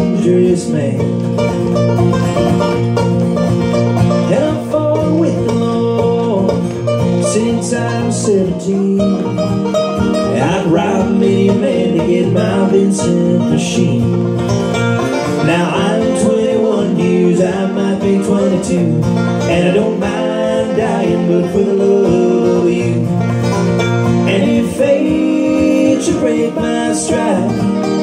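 Acoustic guitar strumming and a resonator banjo picking a bluegrass-style folk song, with a voice singing over them from about the middle of the stretch.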